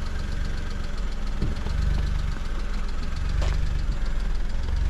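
Car engine idling close by: a steady low hum with a fast, even ticking over it, and a single sharp click about three and a half seconds in.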